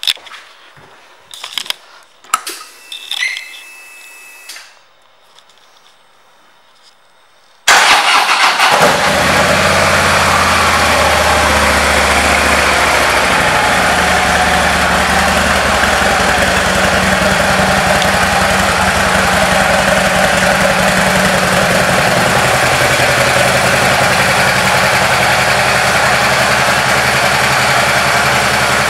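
A few light clicks and handling noises, then about eight seconds in the 2013 Harley-Davidson CVO Ultra Classic's Twin Cam 110 V-twin starts abruptly and settles into a steady idle.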